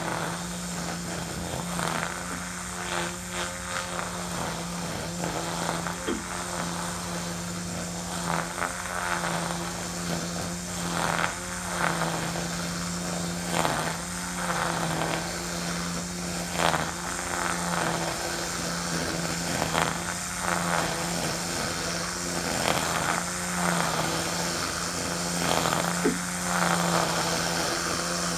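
Ryobi 40V battery string trimmer running steadily at speed, its spinning line humming, with short irregular swishes as it cuts through tall centipede grass.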